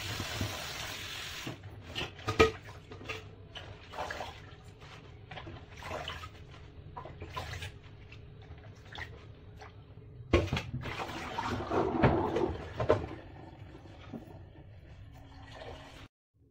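Kitchen tap running into a plastic bowl of romaine lettuce in a stainless steel sink, shut off about a second and a half in. Then hands splash and shake the wet leaves, with short knocks and clatter from a stainless steel colander and the bowl against the sink, busiest near the middle and again about ten seconds in.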